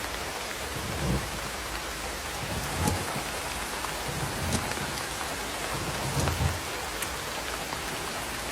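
Heavy rain falling on the tarp-covered roof of an electric tricycle camper, heard from inside the cabin: a steady hiss with a louder low thud every second or two.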